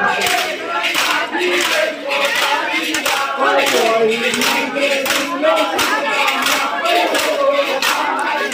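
Bamboo sticks and plastic pipes clacking together in rapid, uneven strikes as men spar in a stick-play dance, over a crowd of men's voices chanting and shouting.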